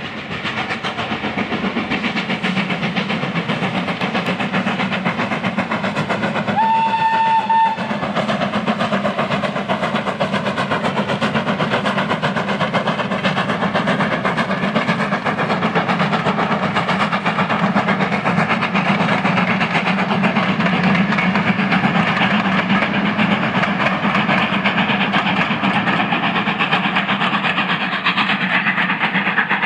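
Steam locomotive hauling a passenger train past, its running sound building up at the start and then holding steady. About seven seconds in, the locomotive's whistle gives a single blast lasting about a second.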